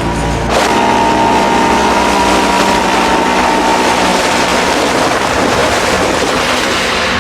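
Chainsaw engine running at high revs, getting suddenly louder about half a second in and holding steady.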